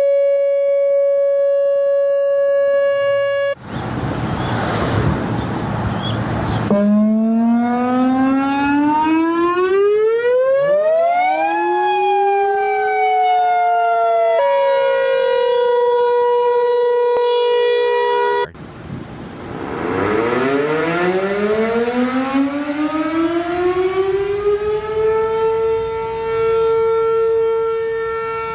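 Outdoor tornado warning sirens, several recordings in a row. First a siren holds one steady tone, then comes a few seconds of loud rushing noise. Next a siren winds up in pitch while a second tone sweeps up and slides back down. About two-thirds of the way in, after an abrupt cut, another siren starts low, winds up slowly and settles into a steady wail.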